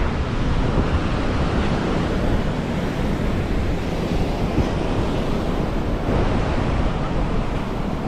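Ocean surf breaking and washing up on a sandy beach, a steady rush of waves, with wind buffeting the microphone.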